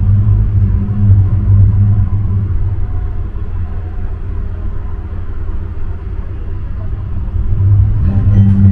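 Tram rolling along, heard from inside the car: a steady low rumble with a hum, quieter in the middle and swelling again near the end.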